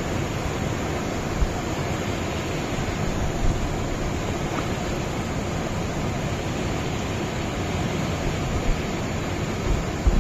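Mountain river rapids rushing steadily over rocks, with a few short low thumps near the end.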